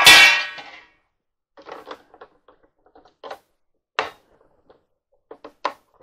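A loud metallic clang with a short ring at the start, then scattered light clicks and rattles of drill bits being picked through in a plastic bit case, with a sharper click about four seconds in and a few quick clicks near the end.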